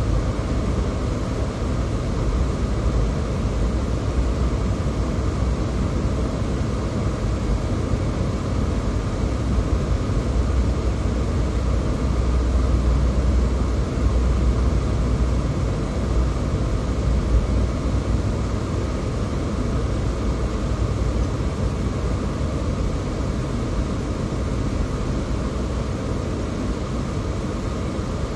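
Steady low rumble of a car driving, with engine and tyre road noise.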